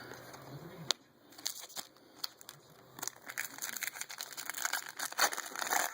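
Foil wrapper of a baseball card pack being torn open and crinkled by hand: a sharp click about a second in, then crackling crinkles that grow denser from about three seconds in.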